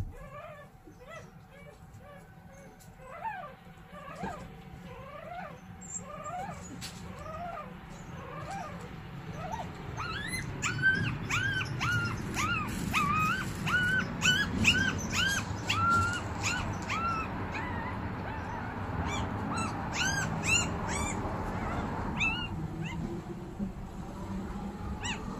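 Newborn puppies squealing and whimpering: faint short squeaks at first, then from about ten seconds in a run of louder, high arching cries, one or two a second, that die away near the end.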